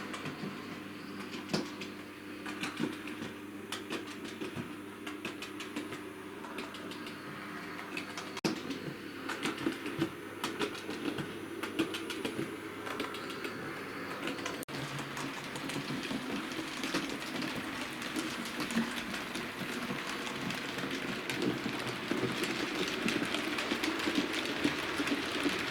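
Hornby Tornado model locomotive running on model railway track: a steady motor hum with irregular clicking and rattling of wheels over rail joints. It grows louder about halfway through.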